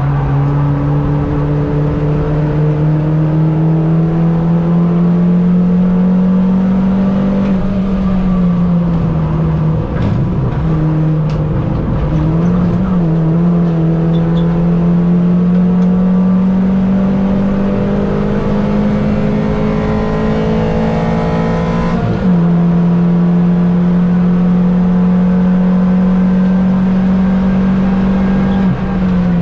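Mini race car engine running hard at high revs. Its note holds and slowly climbs over long stretches, with several short dips and blips where the driver lifts off and changes gear.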